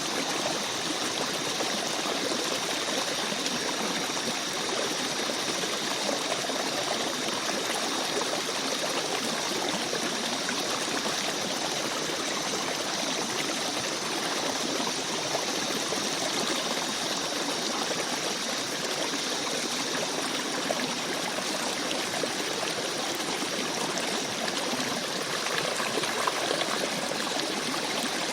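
Gentle forest stream babbling and trickling steadily.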